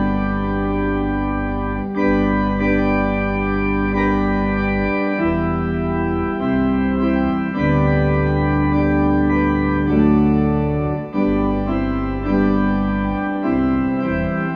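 Slow organ music: sustained chords over a held bass note, the chord changing every few seconds.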